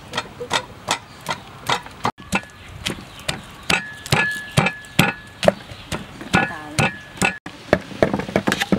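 Wooden pestle pounding in a large wooden mortar, regular knocks about two to three a second. Near the end, a cleaver chopping quickly on a cutting board.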